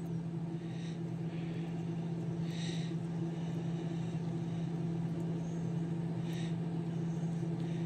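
A steady low machine hum, with a few faint soft squishes and rustles as a tapered wheel bearing is worked by hand into grease.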